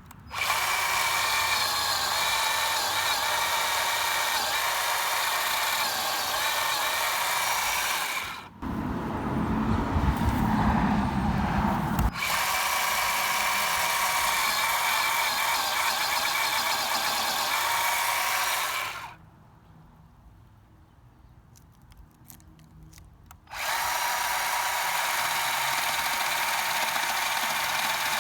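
WORX 20V 10-inch cordless chainsaw's electric motor running with a steady high whine. About nine to twelve seconds in it turns rougher and heavier, as if the chain is biting into the log. It stops for about four seconds, then runs again.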